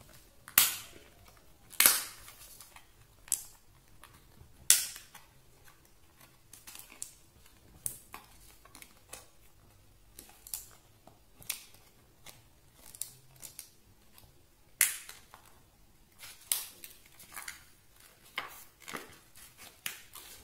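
Stiff clear plastic blister packaging cracking and snapping as it is bent and pulled by hand, resisting being opened. Irregular sharp cracks throughout, the loudest about half a second in, near 2 seconds, near 5 seconds and near 15 seconds.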